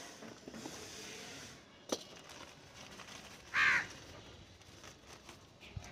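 Faint rustling of a seedling's plastic wrapping being opened, with a sharp click about two seconds in. A little past halfway a crow gives one short, loud caw.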